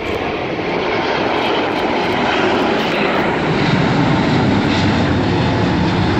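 Airbus A380's four turbofan engines at take-off thrust as the airliner lifts off and climbs: a loud, steady rushing jet noise that grows slightly louder and deeper about halfway through.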